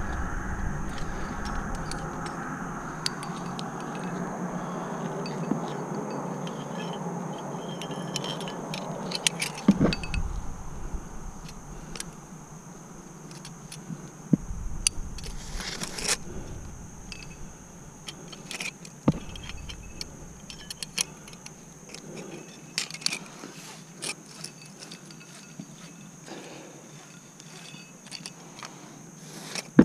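Aluminium climbing carabiners clinking and jangling against each other and a nylon sling as they are handled and clipped, in many scattered sharp clicks. A rushing noise at the start fades away over the first ten seconds.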